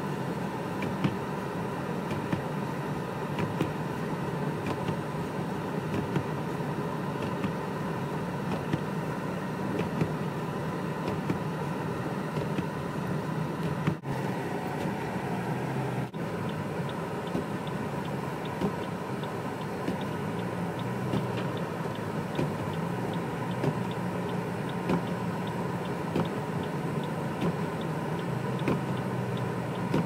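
Steady in-cabin drone of a car driving through heavy snow: engine and tyre noise with many small ticks scattered through it, and two brief dropouts a little before and after the halfway point.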